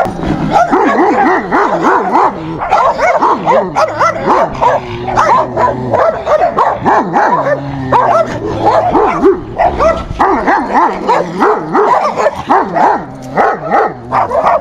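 Guard dog barking at a passing dog from behind its fence, territorial barking: a fast, unbroken string of sharp barks and yips, several a second.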